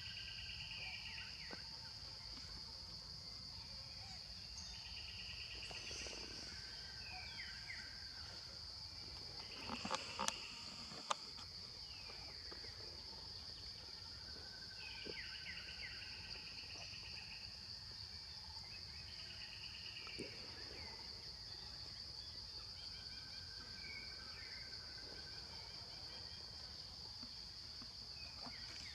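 Insects trilling steadily at a high pitch. About every five seconds a second, pulsing chirp rises briefly over it. A few sharp knocks come about ten seconds in.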